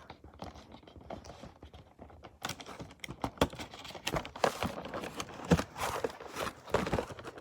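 Hard plastic toy pieces being handled: irregular clicks, taps and knocks, thicker from about two and a half seconds in, as the toy baby is put into its plastic incubator.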